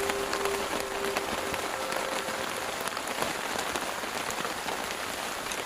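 Steady rain falling, a dense hiss of drops with scattered sharper drop ticks.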